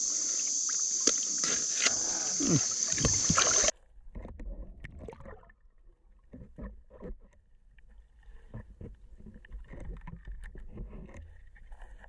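Crickets and other insects chirring in a steady high-pitched drone, with clicks of handling, cutting off abruptly about four seconds in. After that comes a muffled low rumble with scattered soft knocks and sloshes, picked up by a camera underwater.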